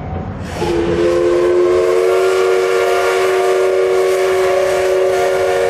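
Steam whistle of the C11 123 steam locomotive sounding one long blast of about five seconds, a chord of several steady tones that slides up slightly as it starts and cuts off sharply, over the low rumble of the moving train.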